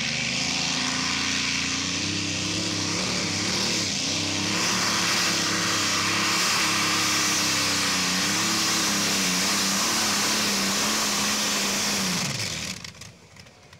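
Pulling tractor's racing engine held at full throttle through a pull, its pitch staying high and wavering slightly, then falling away as the throttle is let off about twelve seconds in.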